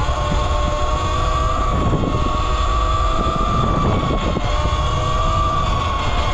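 72-volt electric dirt bike's motor whining steadily while riding, the pitch drifting slightly up and down with speed, over wind rumbling on the microphone.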